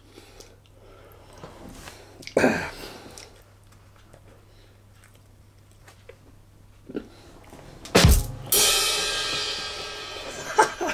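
Comedy drum sting (ba-dum-tss rimshot) marking a punchline: quick drum hits near the end, followed by a cymbal that rings and fades over about two seconds.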